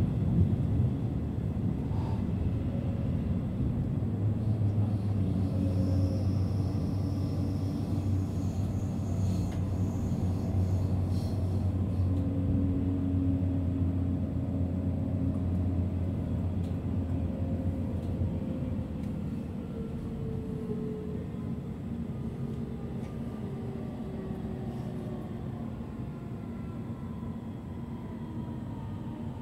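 Berlin S-Bahn class 483 electric train heard from inside, running between stations: a steady rumble of wheels and running gear with an electric motor whine. A loud low hum drops away about 18 seconds in, and a whine falls slowly in pitch over the last ten seconds.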